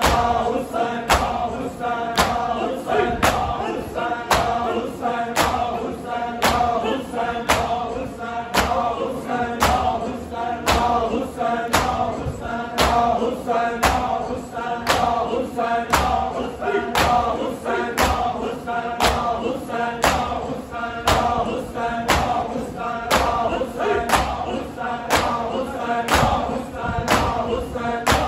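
Crowd of men chanting a noha together over rhythmic matam, open-hand chest-beating that lands about twice a second.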